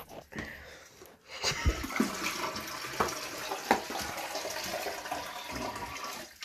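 Water poured from a bucket into an open toilet tank: a steady splashing pour starting about a second and a half in, with a few knocks along the way.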